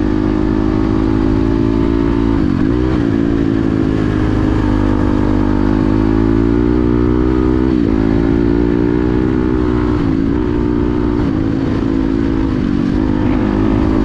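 Yamaha dirt bike engine running at a steady cruising speed, heard from the rider's helmet. The pitch dips briefly three times, about two and a half, eight and ten seconds in, as the throttle is eased off and picked back up.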